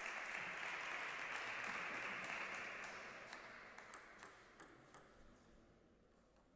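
A table tennis ball ticking a few times, sharp and light, about four to five seconds in, as it is bounced before a serve. Under it a wash of hall noise fades away.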